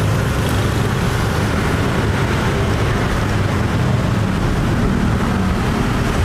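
Steady, loud rumble of passing street traffic with no distinct knocks or voices standing out.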